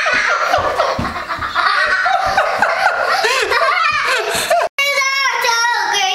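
A man and a young girl laughing hard together, his deep pulsing belly laugh under her higher giggles. It breaks off suddenly near the end, and a child's high voice follows.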